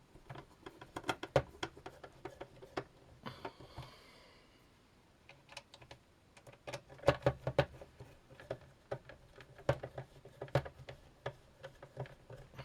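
Irregular light clicks and taps of small screws and a screwdriver being worked into a ZX Spectrum's plastic case during reassembly, with a brief scraping rustle about three seconds in.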